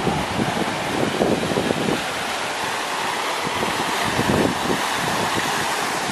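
Fountain jets splashing steadily into a pond, with gusts of wind buffeting the microphone.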